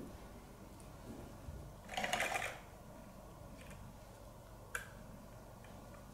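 Faint clicking and rattling from a plastic feather cat toy's lure and coiled cord as a cat bites and tugs on it: a short rattle about two seconds in and a single sharp click later.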